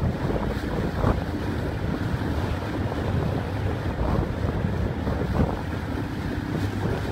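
Wind buffeting the microphone over a steady low rumble and water washing, heard from a boat moving across calm water.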